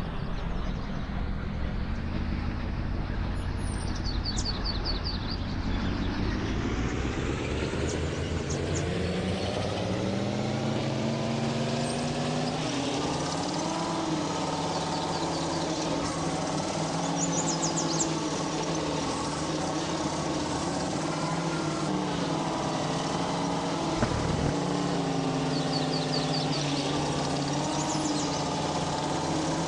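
GAZ vehicle engine running, its pitch rising steadily over the first ten seconds or so, then holding at a steady speed. Birds chirp briefly three times.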